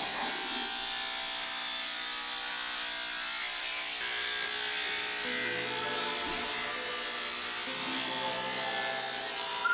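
Electric pet clippers fitted with a 10 blade, running with a steady buzz while shaving a dog's coat.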